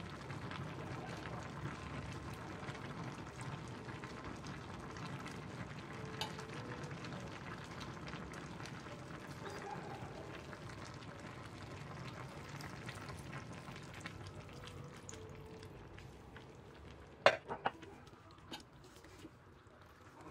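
A steel pot of soup on the stove sizzling and simmering with a steady hiss that fades over the last few seconds. Near the end a few sharp knocks of a spoon against the pot.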